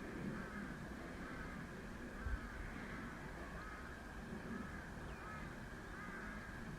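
Birds calling over and over, short arched calls coming several times a second, with a steady low rumble of wind and a brief low thump about two seconds in.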